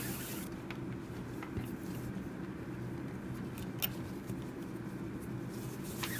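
Faint rustling and scattered light clicks of paracord strands being handled and pulled through the weave, with one sharper tick about four seconds in, over a steady low hum.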